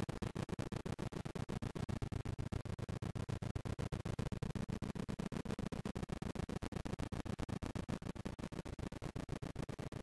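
Camera audio slowed down many times over, turned into a low, stuttering rumble chopped into rapid pulses, about ten a second.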